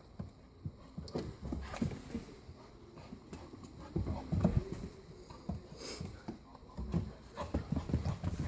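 Irregular thumps and taps of a nine-week-old St. Bernard puppy's paws as it runs and romps, in clusters about four seconds in and again near the end.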